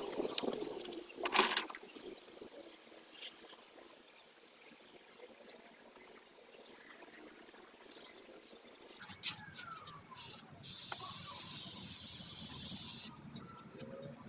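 Thompson's Water Seal being applied to wooden drawers, a soft steady hiss with scattered light clicks.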